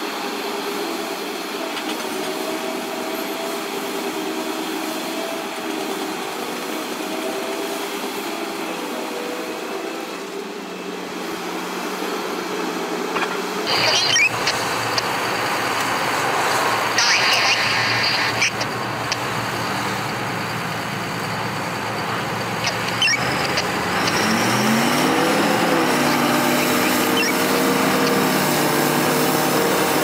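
Heavy mining machines running: a large hydraulic mining excavator's engine hums steadily at first. After a sudden change about halfway through comes a Komatsu D575A-2 bulldozer, with sharp clanks and a squeal, and its engine revving up to a higher pitch about three-quarters of the way through.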